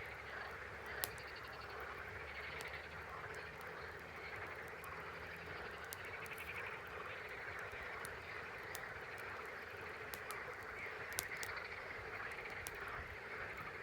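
Campfire crackling, with scattered sharp pops and two louder cracks, one about a second in and one near the end, over a steady chorus in the background.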